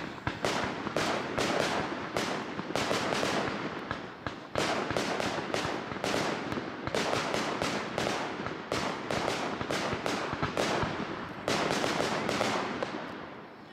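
Aerial fireworks going off in a rapid barrage: sharp bangs several a second with crackling between them, fading away near the end.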